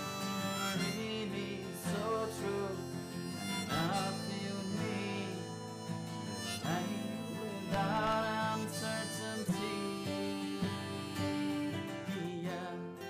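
Background music: an instrumental passage of a pop song, with acoustic guitar and harmonica.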